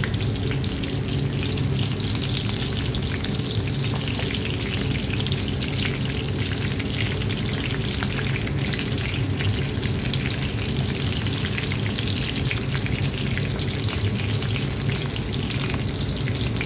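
Chicken nuggets shallow-frying in olive oil in a frying pan: a steady, dense crackling sizzle, over a low steady hum.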